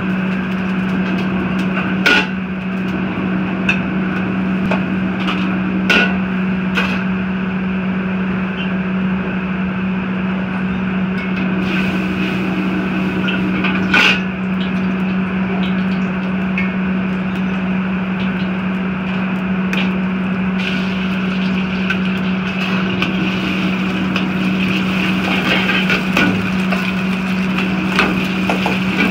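Gas wok burner running with a steady low hum and roar, with a metal ladle knocking sharply against the carbon-steel wok a few times. In the last several seconds beaten egg sizzles and crackles in the hot oil.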